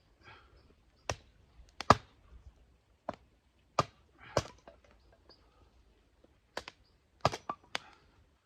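Irregular sharp wooden clicks and knocks, about nine of them at uneven intervals, as pieces of split firewood are handled and knocked together.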